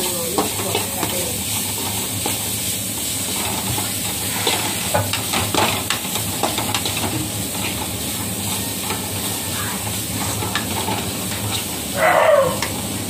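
Metal slotted ladle stirring and scraping diced vegetables frying in an aluminium kadai, over a steady sizzle, with scattered clicks and scrapes of the ladle against the pan. A short, louder sound comes near the end.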